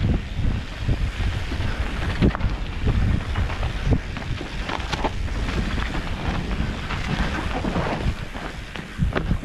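Wind buffeting the camera microphone over the rumble and rattle of a mountain bike riding down a dirt singletrack, with scattered sharp knocks as the bike hits bumps.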